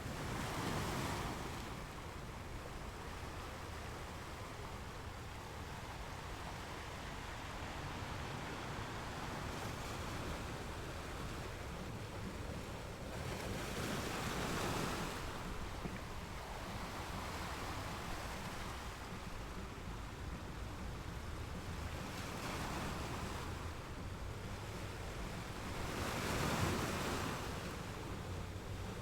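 Ocean surf: waves rolling in and breaking over a steady wash, swelling louder about a second in, about halfway through and near the end.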